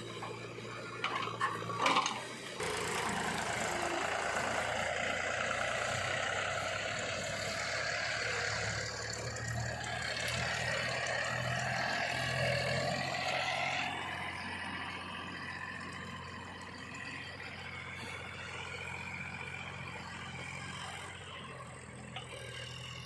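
Heavy diesel machinery running, with rattling and clanking. A few sharp knocks come in the first two seconds, then a louder, noisy stretch starts about three seconds in and eases after about fourteen seconds.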